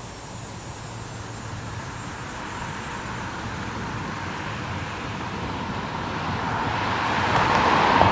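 A road vehicle passing by: its noise swells slowly over several seconds, peaks near the end, then begins to fade.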